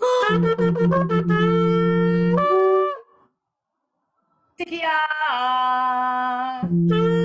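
Several shofars blown together in long sustained blasts, more than one pitch sounding at once. A pause of about a second and a half comes midway, then another blast that drops in pitch at its start, and a long blast again near the end.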